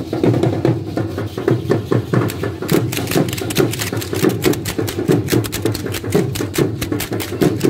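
Matachín dance percussion: a drum keeps a steady beat while the dancers' metal-soled sandals stamp and clatter on the pavement, the sharp taps turning dense about three seconds in.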